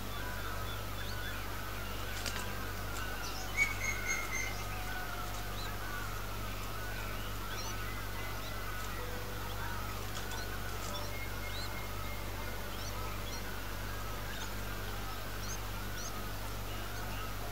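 Birds calling: a steady, wavering chatter with scattered short high chirps, and a few louder calls about four seconds in, over a low steady hum.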